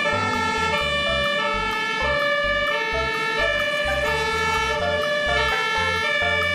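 Fire engine siren sounding steady tones that step back and forth in pitch, over a pulsing low throb.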